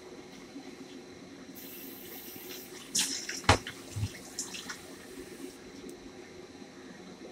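Water running for about four seconds, with a few sharp clinks and knocks in the middle, over a steady low hum.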